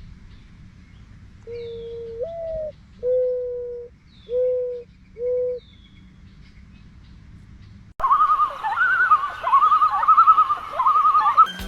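Bird calls: first four low, hooting notes, the first sliding up at its end. Then an abrupt change to a different, higher call, a fast quavering warble with a few quick upward swoops.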